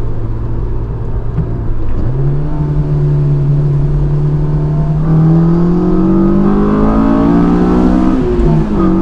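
Honda S2000's four-cylinder engine with an aFe Takeda cold air intake, heard from inside the cabin under acceleration: the engine note steps up about two seconds in, climbs steadily from about halfway, then drops sharply as the gear changes near the end.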